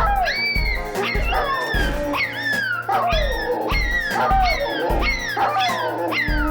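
Music with a steady beat, and over it a dog's high gliding yips and whines, mostly falling in pitch.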